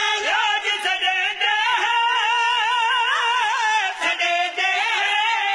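Men's voices singing a Punjabi devotional qasida, the lead voice drawing out long held notes with a quick wavering ornament. There is a short break for breath about four seconds in.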